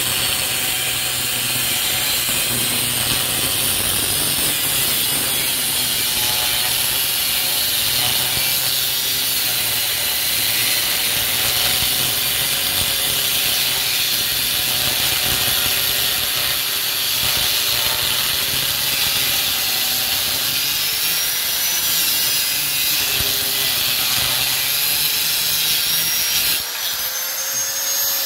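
Handheld angle grinder with a cut-off disc cutting into a motorcycle's rear frame tube, a steady harsh grinding under load. Near the end the disc comes out of the cut and the motor's whine rises as it runs free.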